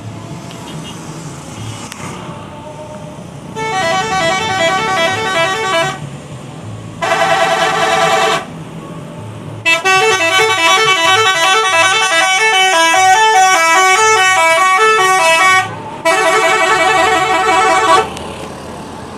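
Multi-tone musical 'telolet' air horn of an Indonesian bus playing tunes in four blasts, the longest about six seconds, over the low hum of the bus.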